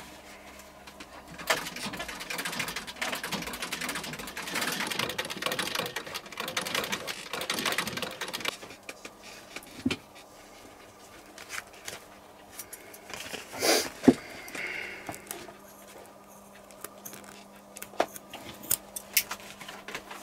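An old Singer sewing machine stitching leather, with a fast metallic rattle of needle strokes for several seconds. It then stops and gives way to scattered knocks and the handling of leather.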